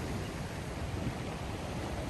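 Sea surf: a steady rushing of waves with a deep rumble.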